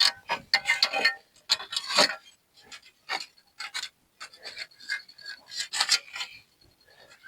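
Irregular scraping, rubbing and clicking of a truck's front-end corner bracket being handled and loose-fitted by hand, busiest in the first two seconds and again near the end.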